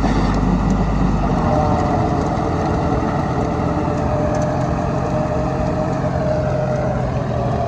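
Deutz-Fahr Agrolux 50 tractor's diesel engine running under load while it drives a rotavator through wet, puddled soil. A steady whine comes in about a second and a half in.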